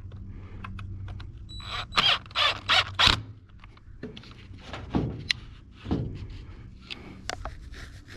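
Hands working on a Stihl string trimmer's housing and bolts during reassembly: irregular clicks, knocks and rattles of plastic and metal parts, with four louder rattling scrapes about two to three seconds in and knocks around five and six seconds.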